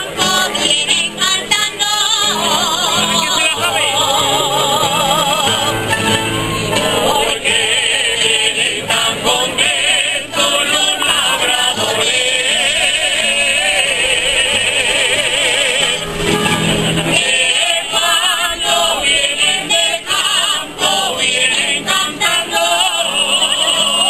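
Live Spanish folk jota: solo voices singing with wide vibrato over strummed guitars and a plucked bandurria-type lute.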